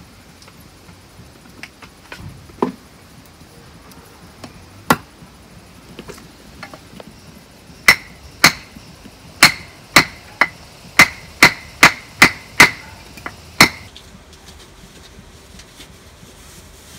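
A run of eleven sharp, hammer-like knocks, roughly two a second, each with a short ringing tone. They begin about eight seconds in, after two or three single knocks earlier on.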